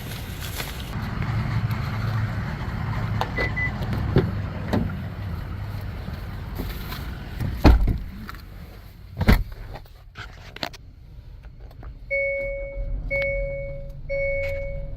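Car running with a steady low rumble, two heavy thumps about eight and nine seconds in, then the car's warning chime beeping about once a second near the end.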